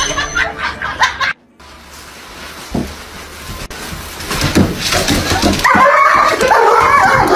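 A short tail of loud music, cut off suddenly, then a quieter stretch with a few soft knocks. Near the end a dog whines and yelps in a string of cries that rise and fall in pitch.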